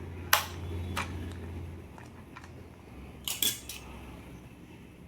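A few sharp clicks and clacks of hard objects being handled, the loudest about a third of a second in and a quick cluster past the three-second mark, over a low hum that fades out after about two seconds.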